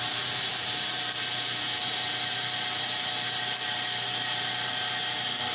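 CNC knee mill's end mill cutting the outer wall of a 2017 aluminium billet: a steady spindle and cutting noise with a continuous hiss over it.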